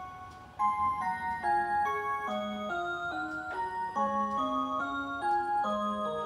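Rhythm Small World 4MN452RH musical wall clock playing one of its hourly melodies, a clear, bell-like tune of single sustained notes. There is a short break about half a second in, then the next phrase starts.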